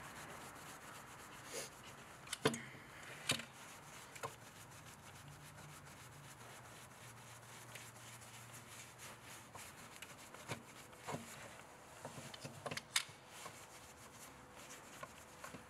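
Faint rubbing of a rag wiping carbon deposits out of a throttle body's bore and off its throttle plate, with a few sharp clicks scattered through it.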